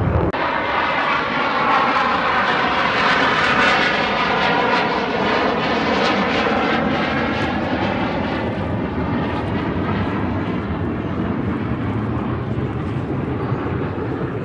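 A jet aircraft flying past, its engine noise a continuous rushing sound. It is loudest a few seconds in, then slowly fades as the aircraft draws away.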